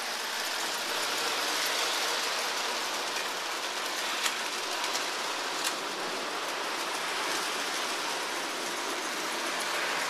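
Lionel O-gauge toy steam locomotive and cars running on three-rail metal track: a steady rolling and whirring noise from the motor and wheels, with two sharp clicks around the middle.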